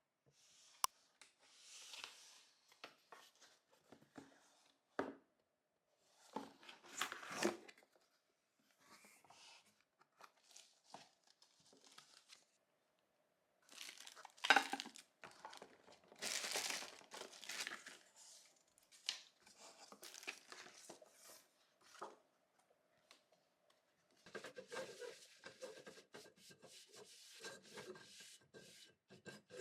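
Packaging being torn open and crinkled by hand, in irregular bursts of rustling with small clicks and knocks between pauses.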